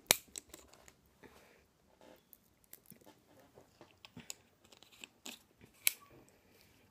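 Plastic drink bottle handled and its screw cap twisted open: scattered small clicks and crackles, with a sharp click at the start and another about six seconds in.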